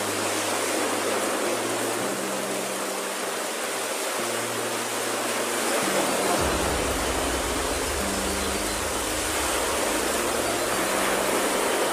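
Small ocean waves breaking and washing up a sandy beach: a steady hiss of surf, with a low rumble joining about six and a half seconds in.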